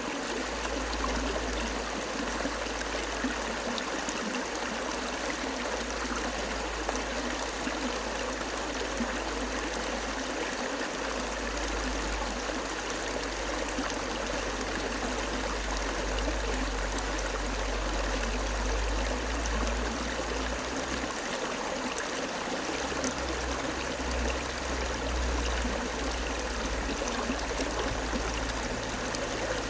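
Running water flowing steadily, an even rushing sound with trickling in it and a deep low rumble underneath that swells and fades.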